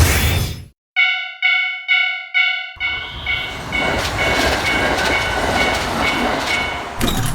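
Japanese railroad crossing warning bell ringing its 'kan-kan', about two strikes a second, after a short burst of noise at the start. About three seconds in, the rumble of a passing train comes in, and the bell keeps ringing over it.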